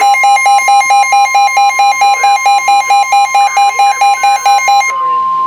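Weather radio alert for a severe thunderstorm warning: a loud beeping alarm, about four beeps a second, over the steady 1050 Hz warning alarm tone of NOAA Weather Radio. The beeping stops suddenly about five seconds in, leaving the steady tone.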